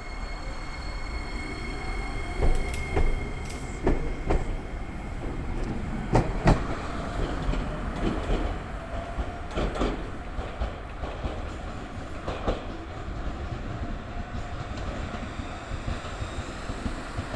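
Iyo Railway train running, its wheels knocking over rail joints about a dozen times in uneven groups over a steady low rumble. A thin high whine fades out in the first few seconds.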